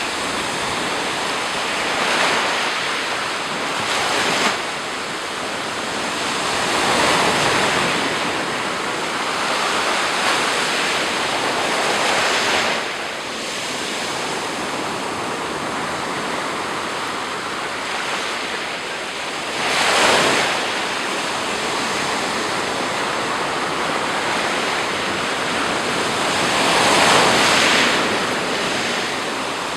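Black Sea surf: waves breaking and washing up the shore in a steady rushing hiss that swells louder every few seconds, most strongly about 20 and 27 seconds in.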